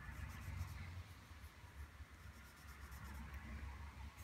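Graphite pencil scratching faintly on drawing paper in quick back-and-forth hatching strokes, laying in shading tone.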